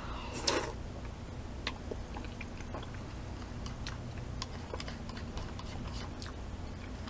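A person eating udon noodle soup: a short slurp about half a second in, then wet chewing with scattered small mouth clicks.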